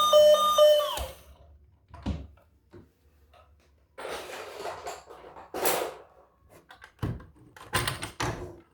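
A toy emergency vehicle's electronic siren sounding a pulsing beep that stops abruptly about a second in, followed by scattered knocks, thuds and rustles of handling.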